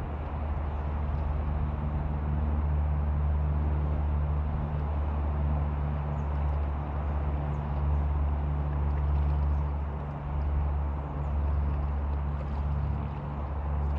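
A steady low mechanical drone, like a motor running, with faint small splashes and drips of water.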